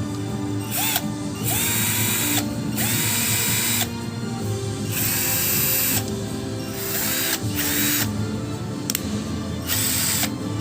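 Ingco 12 V cordless drill run in a series of short trigger bursts, its motor whining up in pitch as each burst spins up, with background music under it.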